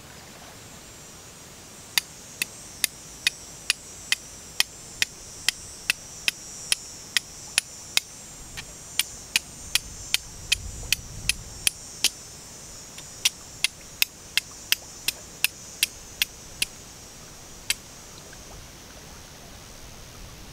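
Steel striker hitting a flint again and again: sharp clicks about two to three a second, in three runs with short pauses, casting sparks onto char cloth laid on the flint's edge. A steady high hiss sits under the strikes.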